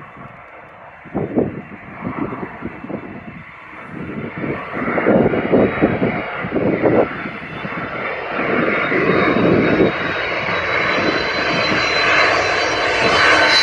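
Jet engines of an Airbus Beluga transport plane on approach, growing steadily louder as it comes in low toward overhead. A high whine from the engines rises out of the roar near the end.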